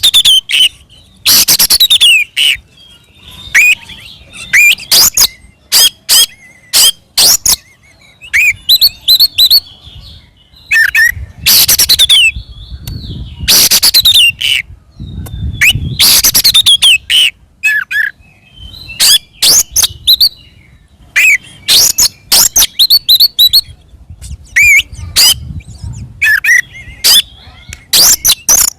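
Oriental magpie-robin singing loud, full, aggressive fighting-mode song: bursts of varied whistled phrases, rapid trills and harsh rasping notes, with short pauses between phrases.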